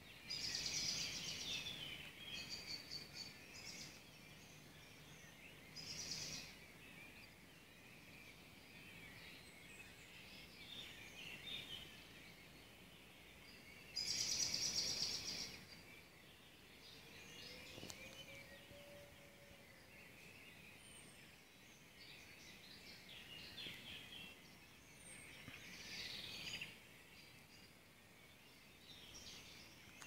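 Songbirds singing in the early-morning dawn chorus, several overlapping high songs with louder phrases about a second in, around six seconds and around fourteen seconds.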